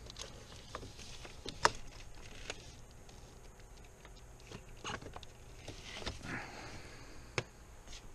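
Scattered small clicks and taps with some rustling, from a screwdriver and hands working the plastic clips and connectors on fuel vapour lines. A sharp click comes about a second and a half in and another near the end.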